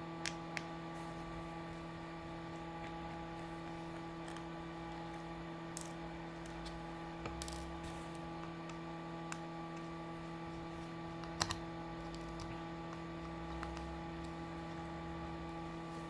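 Scattered small, sharp clicks of a precision screwdriver and tiny screws as the screws are taken out of a Samsung Galaxy S7 edge's inner frame, over a steady electrical hum.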